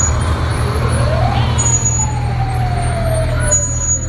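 Fire truck siren giving one short wail: it climbs quickly about a second in, then slowly winds back down. Underneath is the steady low rumble of heavy truck engines running.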